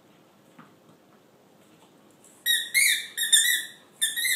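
A dog's squeaky rubber ball being chewed, giving a quick run of high-pitched squeaks from about halfway in.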